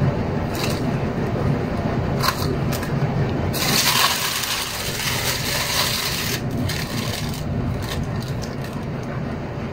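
Hands working mozzarella cheese into a plastic bowl on a kitchen counter: light clicks and scrapes over a steady low hum, with a rushing noise about three seconds long starting around three and a half seconds in.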